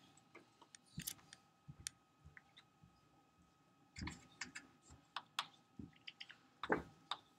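Faint scattered clicks and light knocks, coming a few at a time in short clusters, over a faint steady hum.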